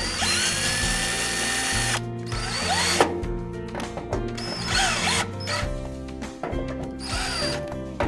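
Cordless drill/driver running screws into a door closer's parallel arm bracket on the door frame, snugging the four bracket screws. It runs in several trigger bursts, the motor whining up to speed and winding down each time. The first run lasts about two seconds and the later ones are shorter.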